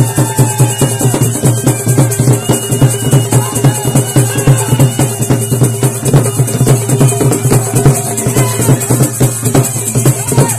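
Loud folk music with steady drumming, about three beats a second, and a melody that bends up and down over it.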